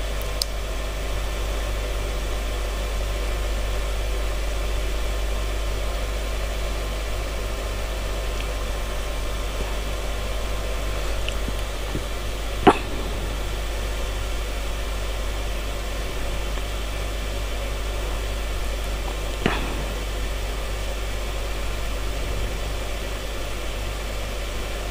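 Steady background hum and hiss, with two short faint clicks, one about halfway through and one about three-quarters through.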